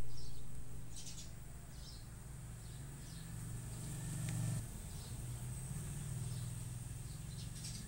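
Low hum from a 12-inch subwoofer in its ported box as the Dayton Audio DATS V3 plays its test signal through it to measure impedance and box resonance. Birds chirp faintly.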